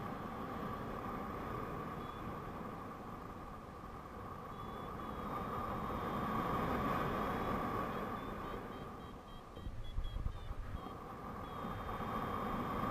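Air rushing over the camera microphone in paraglider flight, buffeting louder about ten seconds in. Faint high beeps from the flight variometer come and go, chopped into short beeps near the end.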